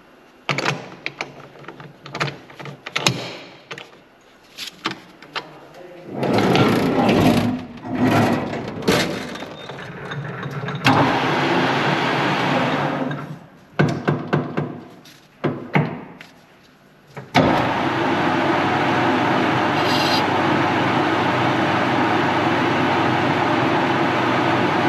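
Metal parts and tools knocking and clattering on a workbench, with a few short noisy stretches. About seventeen seconds in, a machine tool switches on and runs with a steady hum.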